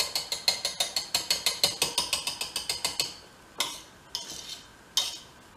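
A wire whisk beating thick cream cheese batter in a stainless steel mixing bowl, the wires clicking against the bowl about six times a second. The beating stops about three seconds in, leaving a few softer scrapes.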